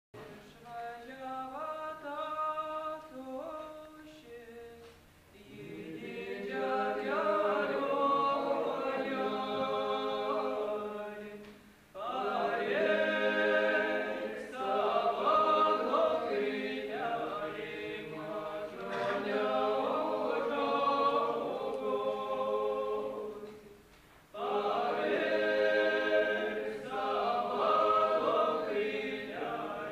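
Unaccompanied vocal singing of a Lithuanian folk song, sung in long phrases with short breaks between them about 5, 12 and 24 seconds in.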